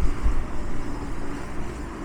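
Engine of a 2006 E-Z Crusher log baler running steadily with a deep rumble, briefly louder in the first half second.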